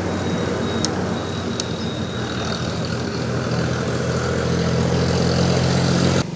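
A vehicle engine running steadily with an even low hum, with two faint clicks in the first two seconds.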